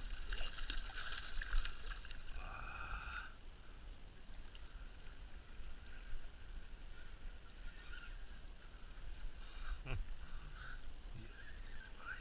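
A pike thrashing and splashing in a landing net at the water's edge for about the first three seconds, then lighter water sounds, with one short falling sound about ten seconds in.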